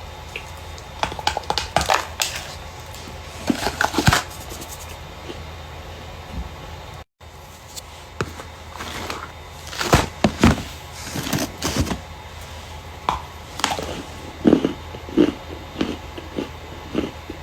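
Starch being crushed, irregular clusters of crisp crunching and crackling in bursts, with a brief cut to silence about seven seconds in.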